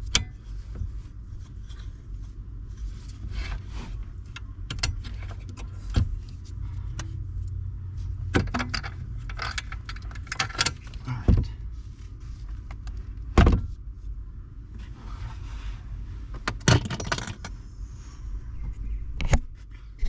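Scattered clicks, knocks and rattles of hands and tools working loose the plastic trim clips on a Hyundai Sonata's steering column, the sharpest knock about two-thirds of the way through, over a steady low hum.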